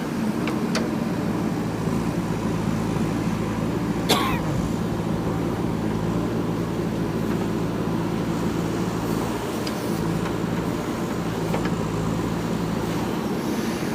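Diesel engine of a JCB 3DX backhoe loader running steadily under work, with one sharp metallic knock about four seconds in and a few fainter clicks.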